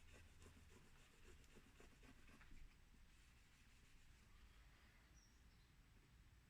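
Near silence, with faint rustling and rubbing for the first two and a half seconds or so, as a vinyl decal is positioned and smoothed onto the motorcycle's bodywork by hand.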